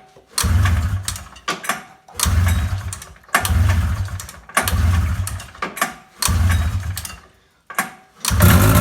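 Freshly rebuilt two-stroke engine of an Arctic Cat Jag 340 snowmobile being pull-started with the choke on: five pulls of the recoil starter, each a short burst of cranking, before it catches near the end and keeps running.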